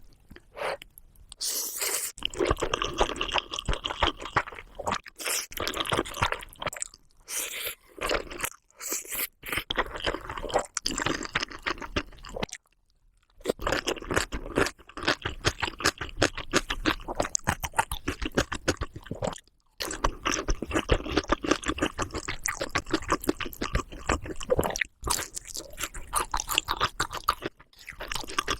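Close-miked crunchy chewing of food in a rapid run of crunches, stopping briefly twice before carrying on.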